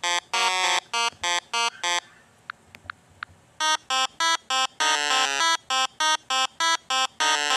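Goat bleating in two stuttering bouts, each a fast wavering 'meh-eh-eh' of about four to five pulses a second, with a short pause between them.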